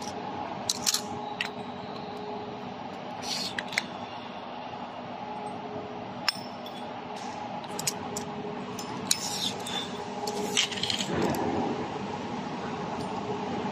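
Scattered light metallic clicks and clinks from steel workpieces and a dial caliper being handled, with a short scrape about eleven seconds in, over the steady hum of factory machinery.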